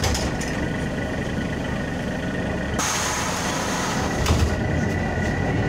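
Engine and road noise of a LAZ city bus heard from inside the cabin while it drives along a wet road: a steady rumble and tyre noise with a thin steady whine. Two quick knocks come about four seconds in.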